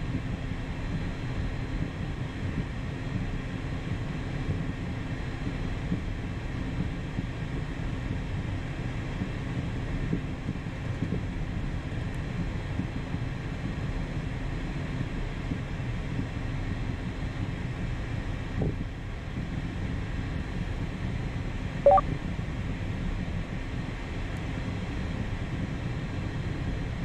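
Steady cockpit noise of an Embraer Phenom 300 jet taxiing, its two Pratt & Whitney Canada PW535E turbofans at low taxi power: a low rumble with a steady hum over it. Near the end comes one brief, sharp chirp.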